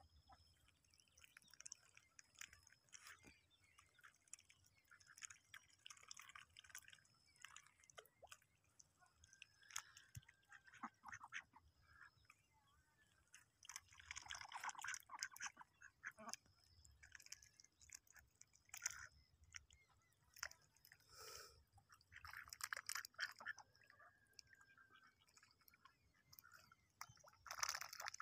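Domestic ducks dabbling at the muddy edge of a pond, their bills working through shallow water and mud in faint, irregular wet clicking and smacking sounds, louder in a few short patches.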